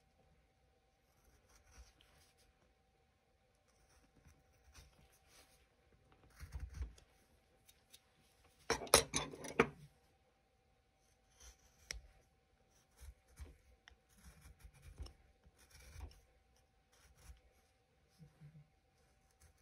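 Hand carving tool cutting into basswood: intermittent short scraping slices as shavings come off, with one louder cut lasting about a second just before halfway.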